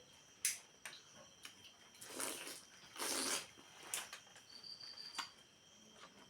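Close-miked eating and snack-handling noises: scattered sharp clicks and two short crunchy, rustling bursts, about two and three seconds in.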